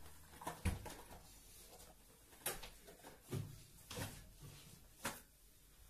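Handling noise: a few soft knocks and rustles, about a second apart, as cardboard boxes and clothes are moved about on a bed.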